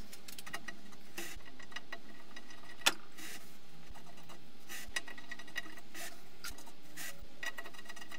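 Small machine screws being driven by hand with a screwdriver into the threaded metal ring holding a rocket nozzle: intermittent scraping and rubbing with light metal clicks, one sharper click about three seconds in.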